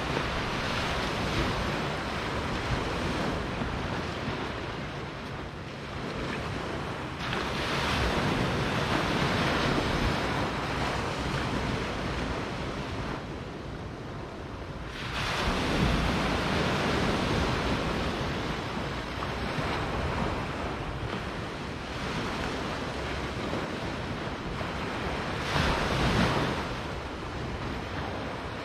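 Small sea waves breaking and washing up on a sandy beach. The rush of water swells and fades every several seconds, with the strongest breaks about halfway through and a short sharp one near the end.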